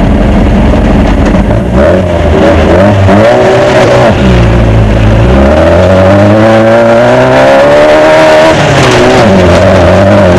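Off-road desert race car's engine heard from inside the car, running hard, its pitch climbing and falling several times as it revs up and comes off. A steady rush of noise underneath, all very loud.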